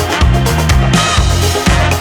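Dance-style music with a steady drum beat and a pulsing bass line.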